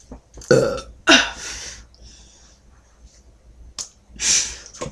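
A girl burping twice in quick succession, a short belch about half a second in and a longer one right after. Near the end there is a sharp click and a breathy puff of air.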